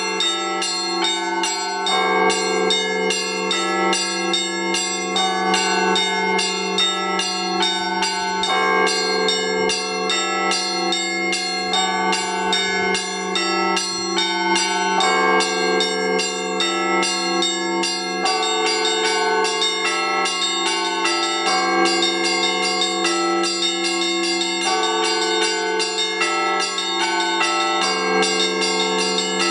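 Russian Orthodox church bells rung in the Rostov tradition: a rapid, steady peal of small and middle bells struck in a repeating pattern over the sustained ring of a deeper bell.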